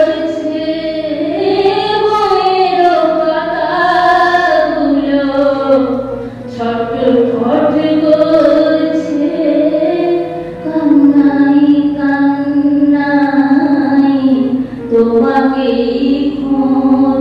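A woman singing a slow, unaccompanied-sounding melody into a microphone, holding long notes that glide gently between pitches.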